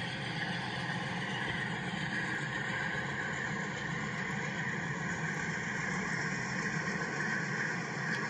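A train running steadily past, an even mechanical rumble with no breaks.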